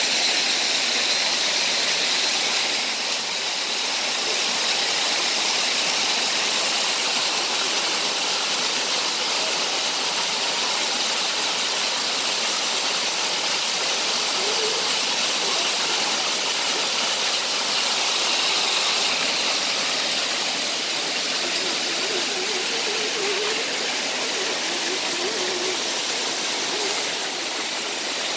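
Steady rush of a creek flowing over rocks. A radio-controlled rock crawler's electric drive whines over it, most clearly in the first few seconds.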